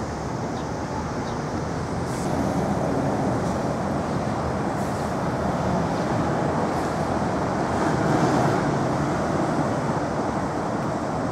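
Steady outdoor rumble of traffic, growing a little louder through the middle.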